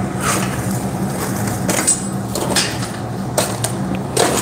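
Iron bar and tongs clinking and scraping in the fire of a blacksmith's forge as the bar is set in to heat, with several sharp knocks, the loudest near the end, over a steady low hum.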